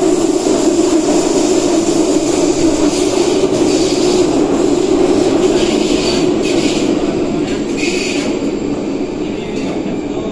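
Athens Metro Line 2 train running, heard from inside the carriage: a loud steady rumble with hiss. Brief high squeals come from the wheels in the middle, and the noise eases a little near the end.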